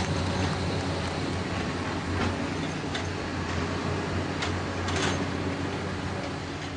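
A steady low mechanical hum, like engines running, with scattered clicks and knocks over it; it fades out near the end.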